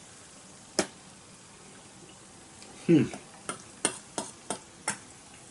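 Cutlery clicking against a plate while eating: one sharp click about a second in, then a quick run of five clicks in the second half. A brief murmured 'mm' comes just before the run of clicks.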